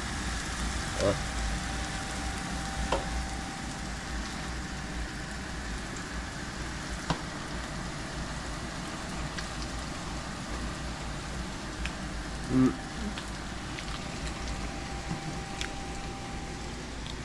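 Onion pakoras sizzling steadily in hot oil in a wok, with a few light clicks of a metal slotted spoon against the pan and plate.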